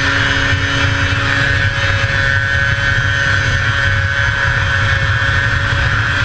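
1981 Arctic Cat El Tigre 6000 snowmobile's 500cc two-stroke engine running at steady high revs under full race throttle.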